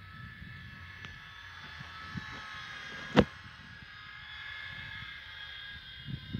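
Radio-controlled model C-130 Hercules flying past overhead, its four propellers making a steady high whine of several close tones that swells and then fades slightly. A sharp click about three seconds in is the loudest sound, over a low rumble.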